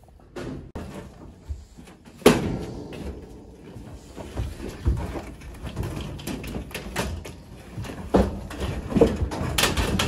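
Steel gates and a livestock trailer clanking and knocking while cattle are loaded, with one loud bang about two seconds in and several lighter knocks after it.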